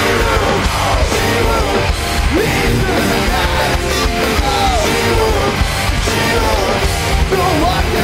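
Live metalcore band playing: distorted electric guitars and drums, loud and steady, with yelled vocals over them.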